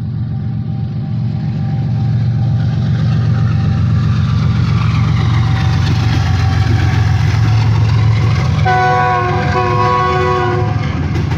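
Express train with new CRRC Tangshan coaches running on the track, a loud steady rumble of wheels on rail that builds in the first few seconds. Near the end a train horn sounds for about two seconds, with a short break partway through.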